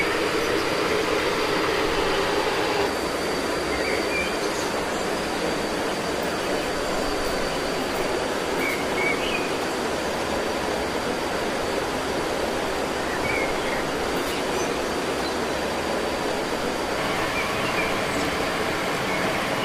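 Steady rushing of water, with a thin steady high tone over it and a few faint short chirps scattered through.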